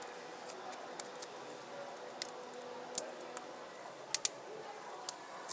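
Small sharp clicks and taps of a screwdriver and small tools against a smartphone's plastic housing during reassembly. They come at irregular spacing, about seven or eight in all, with two close together about four seconds in, over a faint steady hum.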